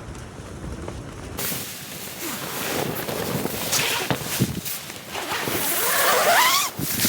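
Strong wind buffeting the tent in the rain, the tent fabric flapping and snapping. About a second and a half in it gets suddenly louder and keeps building, with a short rising squeal near the end.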